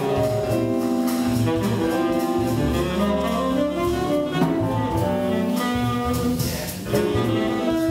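Tenor saxophone playing a swing jazz solo line, backed by double bass and drums.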